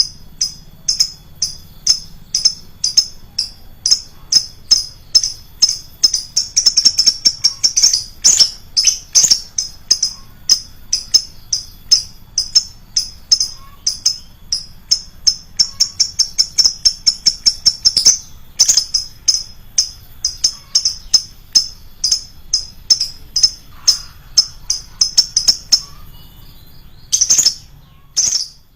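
Lovebird calling: a long run of short, shrill, high-pitched chirps at about three a second, quickening in stretches, then thinning to a few calls and breaking off near the end.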